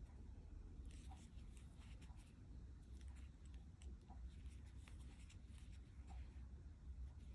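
Near silence: faint, irregular scratchy rustles and light ticks of a steel crochet hook pulling number 3 cotton yarn through single crochet stitches, over a low steady hum.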